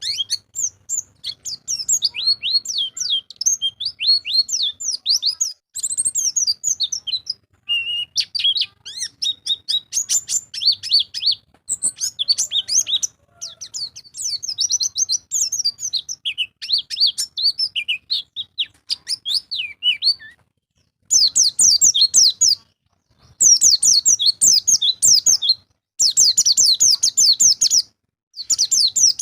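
White-eye (pleci) singing a fast, varied twittering song of high chirps and trills. In the last third it switches to loud, dense bursts of rapid notes, each a second or two long, with short pauses between.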